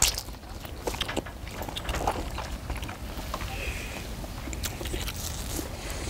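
People biting and chewing hot fish cake (eomuk) off wooden skewers, with scattered small clicks and smacks of eating over a steady low rumble.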